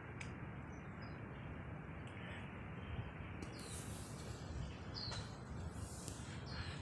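Steady outdoor background noise, with a few short, falling bird chirps in the second half.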